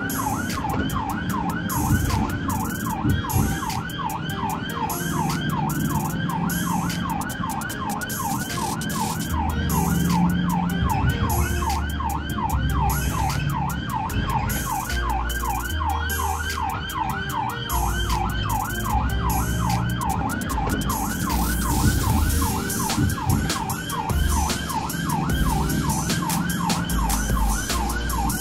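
SAMU ambulance siren on a fast yelp: a rising-and-falling wail repeating about three times a second, without a break, on the ambulance as it drives through traffic.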